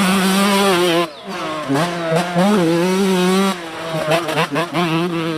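Motocross dirt bike engine revving as it rides, its pitch rising and falling with the throttle, with brief let-offs about a second in and again past three and a half seconds.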